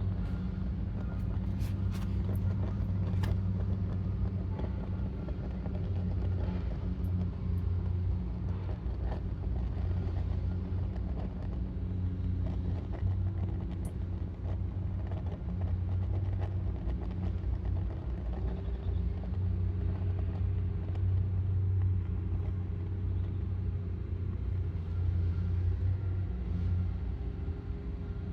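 Oil burner firing on furnace oil, giving a steady low rumble, with a few faint clicks in the first few seconds.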